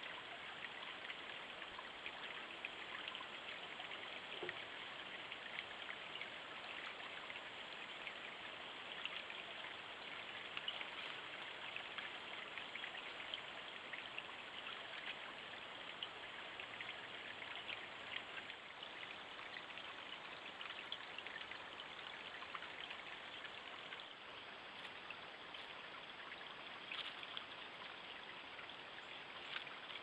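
Shallow creek trickling over its bed, a steady soft rush of water picked up by a trail camera's microphone, with a few faint ticks.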